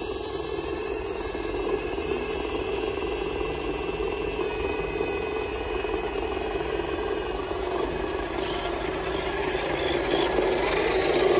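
Electric motors and geared drivetrains of scale RC rock crawler trucks whining steadily as they crawl along a dirt trail, growing louder near the end as a truck comes closer.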